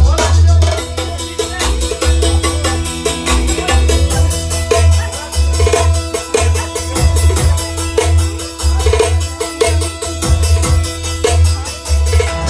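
Instrumental break in an Albanian folk song: a fast, even drum beat under a sustained melody line and a steady bass.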